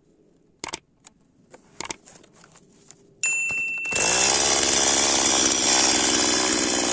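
Petrol chainsaw being pull-started: a couple of sharp clicks, then about three seconds in the engine fires and settles into a steady, loud run.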